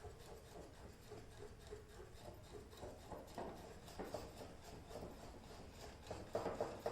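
Hand whisk mixing batter in a bowl: a faint run of quick scrapes and light ticks against the bowl, busier near the end.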